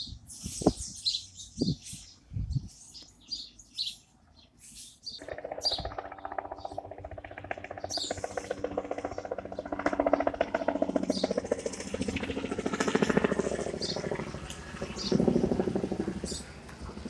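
Birds chirping for the first few seconds, then, about five seconds in, a helicopter's fast, even rotor beat and engine take over, growing louder and fading in waves as it passes overhead.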